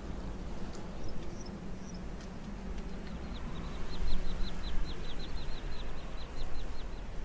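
A bird calling in a fast series of short, falling whistled notes, about five a second for roughly four seconds, over a steady low rumble and hiss of background noise.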